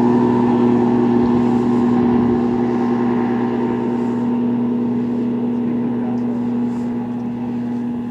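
Motorboat engine running steadily at a constant pitch, easing slightly in loudness over several seconds.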